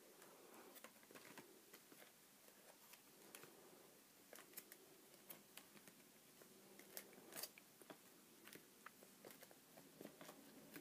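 Near silence with faint scattered clicks and crinkles of plastic binder sleeves being handled as a card-binder page is turned.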